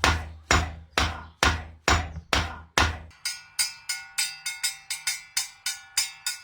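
Rhythmic knocking from the work of fitting an animal skin onto a djembe. Heavy, deep strikes come about two a second, then about three seconds in they give way to lighter, quicker strikes, about four a second, with a ringing tone.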